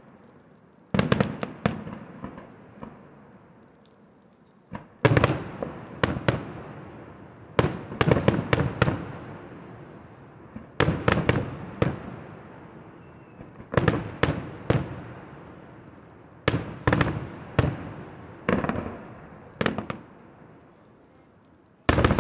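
Aerial firework shells bursting: groups of several sharp bangs every two to three seconds, each dying away in a long echo. A loud new group starts right at the end.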